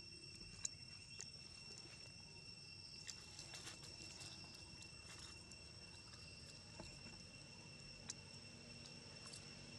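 Faint, steady drone of forest insects holding two high tones, with a few scattered clicks and a short patch of dry-leaf rustling about three to four seconds in as a monkey moves over the leaf litter.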